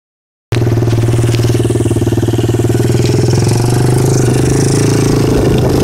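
Polaris ATV engine running at a steady speed under way, a strong even engine note with little change in pitch.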